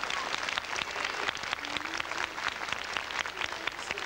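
A crowd applauding steadily, a dense spatter of many hands clapping.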